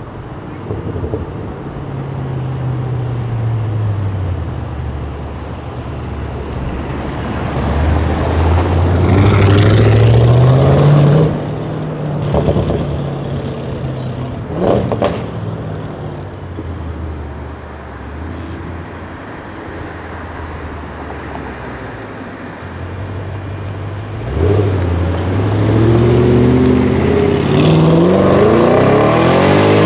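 Tuned Audi RS6 Avant C7 twin-turbo V8 through a Milltek exhaust, its note rising and falling several times. It climbs hard about eight seconds in and cuts off sharply near eleven seconds, with a short sharp bang about fifteen seconds in. It climbs again from about twenty-four seconds.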